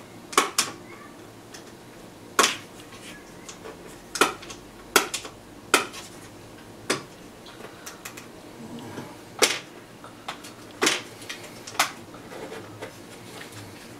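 About a dozen sharp, irregularly spaced clicks and clacks of hard plastic and metal as fingers work at the front panel of a 1985 Emerson portable TV set, fishing out a penny lodged inside.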